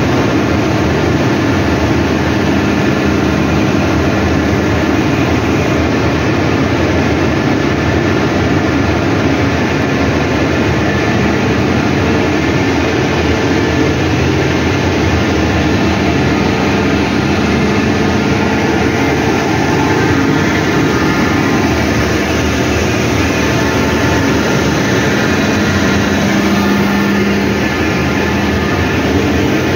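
Steady, loud drone of industrial machinery running: the fans and motors of a thermic fluid heater's cyclone emission-control plant, with a constant hum and no distinct events.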